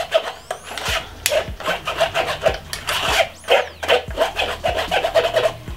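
A spoon scraping and rubbing against a fine metal mesh sieve in quick, irregular strokes, pressing blended pomegranate pulp through to strain out the juice. Two brief high squeaks come about half a second in and again just after three seconds.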